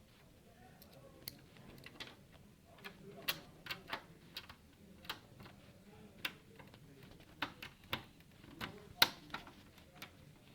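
Light clicks and taps at uneven intervals, the loudest about nine seconds in: a screwdriver and screws at work fastening a power supply back into a desktop computer case.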